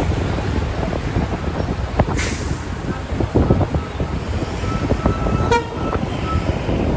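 Steady wind and road rumble from a moving motorbike, with a vehicle horn sounding for about a second around five seconds in.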